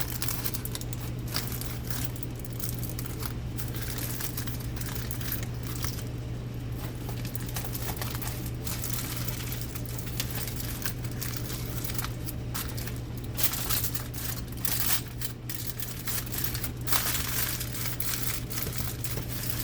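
Aluminium foil crinkling and crumpling as it is folded tightly around a tray of beef ribs, with many irregular crackles, over a steady low hum.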